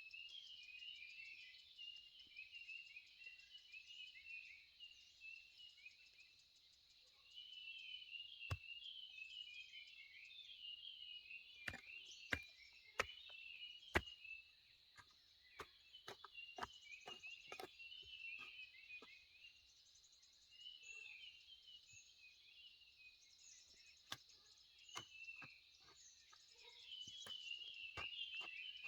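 Faint outdoor chorus of insects and birds: a steady high insect drone under many short, repeated chirps. A scatter of sharp clicks and knocks comes through the middle and again near the end.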